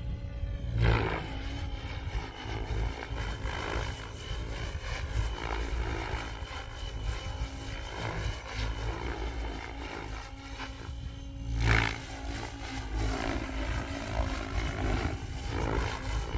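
Goosky RS7 electric RC helicopter in flight, its rotor and motor whine running steadily with the pitch wavering up and down as it manoeuvres. Two louder rushes of sound, about a second in and about two-thirds of the way through.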